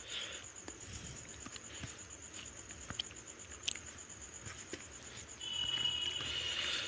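Fingers mixing rice and curry on a paper plate: soft squelching with scattered small clicks. Near the end comes a louder stretch of hiss with a thin whistling tone, and a steady, finely pulsing high trill runs underneath throughout.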